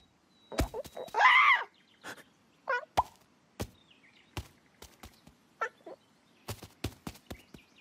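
Cartoon sound effects: a warbling, squawking bird cry about a second in, with shorter cries later. Between them come many sharp taps and knocks, in a quick run near the end.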